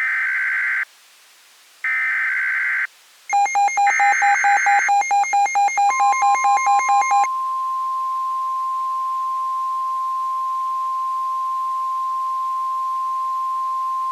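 Emergency Alert System tones announcing a new warning. First come two one-second bursts of screechy data tones, the SAME header. Then a rapid beeping of about four to five pulses a second, and from about six seconds in a single steady alarm tone, the 1050 Hz NOAA Weather Radio warning tone.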